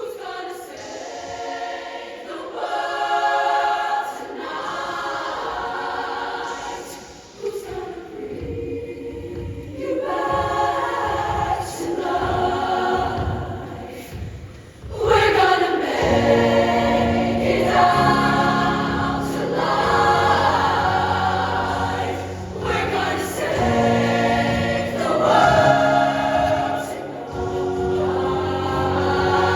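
Show choir singing sustained chords in harmony with no clear words, over band accompaniment. About halfway through the sound jumps louder and fuller as low sustained notes come in underneath.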